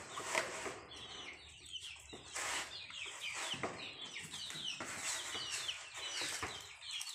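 A chicken clucking, with a run of short, high, quickly falling chirps.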